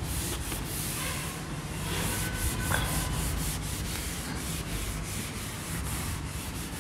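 Cloth duster rubbed back and forth over a chalkboard, erasing chalk writing: a steady scrubbing made of repeated short strokes.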